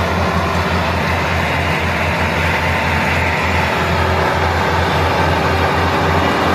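Massey Ferguson 385 tractors' four-cylinder diesel engines running hard under heavy load while pulling a stuck, fully loaded sugarcane trolley. The engines make a steady, loud, low sound.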